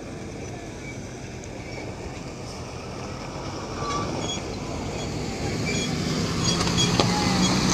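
UD truck's diesel engine running amid a steady rushing noise that grows louder, with a low engine drone setting in about six seconds in.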